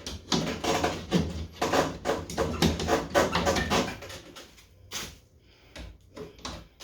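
Plywood shipping crate being worked open by hand: a rapid run of knocks, scrapes and rattles from the wooden panels, busiest in the first four seconds, then a few scattered knocks.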